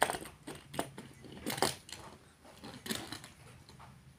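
Small die-cast toy car clicking and tapping against a hard plastic compartmented storage case as it is set down and pushed about: a few sharp clicks, the loudest right at the start.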